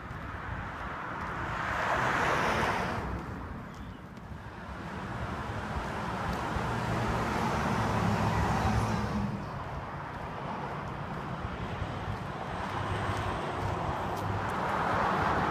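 Road traffic: passing cars whose tyre and engine noise swells and fades about three times, with wind on the microphone.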